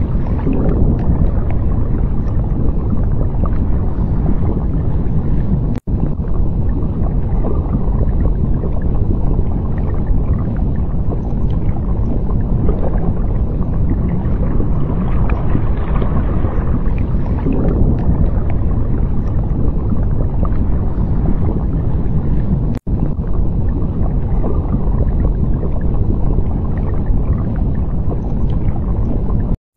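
Steady low rumbling wash of underwater ambience, broken by two very brief gaps, about six and twenty-three seconds in.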